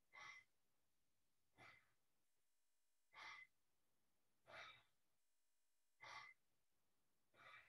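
Faint, short breaths, about one every second and a half, keeping time with a swinging-arms qigong exercise.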